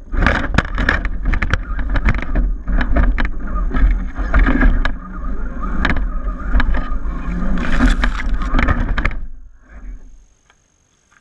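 Axial SCX10 RC crawler jolting over a rocky, leaf-strewn trail, heard from a camera mounted on the truck: a constant low rumble with many irregular knocks and rattles. The noise dies away about nine seconds in and is nearly silent by the end.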